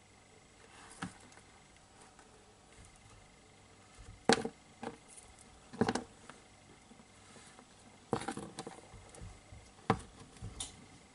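Metal feeding tweezers clicking and tapping against the tank floor and glass, a handful of sharp clicks a second or two apart over a quiet background.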